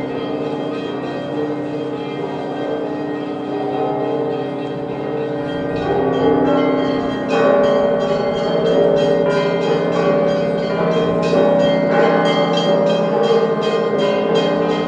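Church bells ringing: several bells of different pitch struck in quick succession, ringing on over one another, growing louder and busier about six seconds in.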